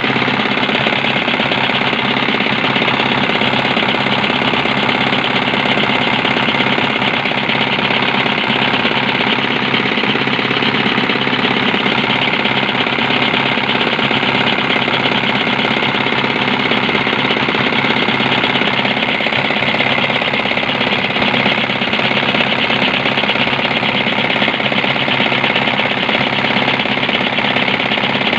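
Single-cylinder Chinese "Dompeng" diesel engine running steadily with a fast, even knock.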